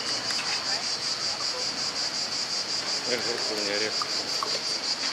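Insects chirring steadily in a high, even pulse of about six beats a second.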